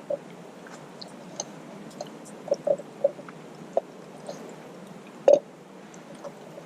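A man chewing a mouthful of steak: scattered short wet mouth clicks and smacks, the loudest about five seconds in.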